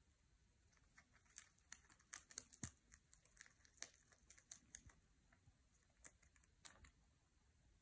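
Faint, irregular crunching clicks of a rabbit chewing leafy twigs.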